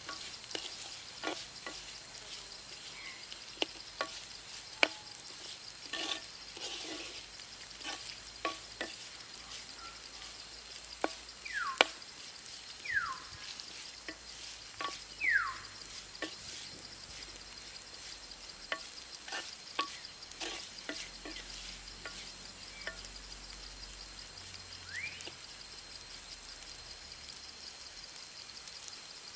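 Pineapple being stir-fried for a tempered curry: irregular knocks and scrapes of a spoon in the pan over a frying sizzle, with a steady high drone behind and a few short falling whistles around the middle.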